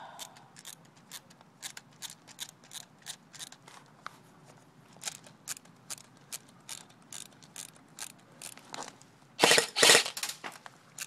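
Airsoft electric rifle: a run of light, evenly spaced ratcheting clicks, about three a second, then two much louder sharp bursts near the end.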